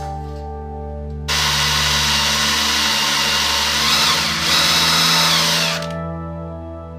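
Cordless DeWalt drill boring into a steel box-section tank, starting about a second in and stopping near the end, its high whine dipping and picking up again about halfway through. Soft ambient music plays underneath and alone either side of the drilling.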